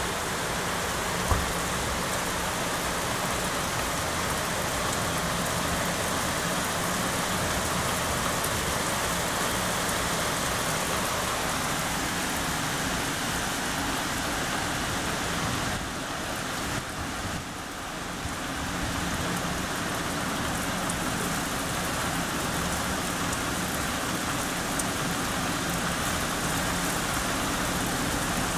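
Heavy rain falling steadily, an even hiss of rain on surfaces. One short sharp tap about a second in, and the rain eases slightly for a couple of seconds a little past halfway.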